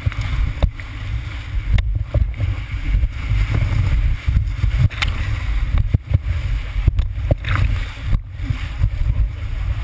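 River whitewater rushing around a raft, with a heavy, churning low rumble and a few sharp knocks scattered through it.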